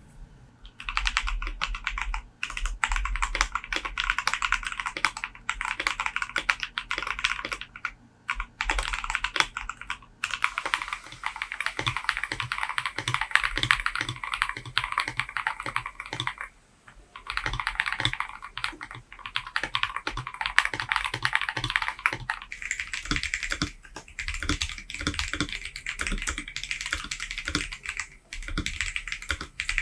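Typing on a mechanical keyboard fitted with Akko Jelly Purple tactile switches: fast, dense runs of keystroke clicks in several bursts, with short breaks about 8, 10, 17 and 22 seconds in.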